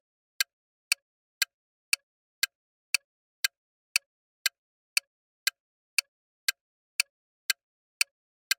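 Countdown timer sound effect: short, sharp ticks, evenly spaced about two a second with silence between them, counting down the time allowed to answer a quiz question.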